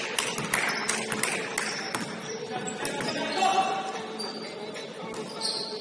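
Indoor basketball game sounds in a large gym: a run of sharp knocks, mostly in the first two seconds, typical of a ball being dribbled on a hardwood court, with brief high squeaks and players' voices in the background.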